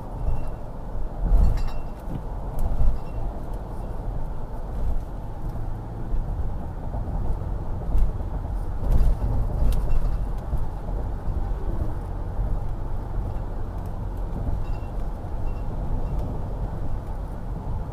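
Steady road and engine rumble of a vehicle driving at highway speed, heard from inside the cab, with a couple of louder thumps in the first three seconds.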